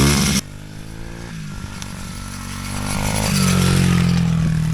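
Small petrol engine revving up and down, then abruptly much quieter and duller, running steadily and growing louder again about three seconds in as it comes nearer.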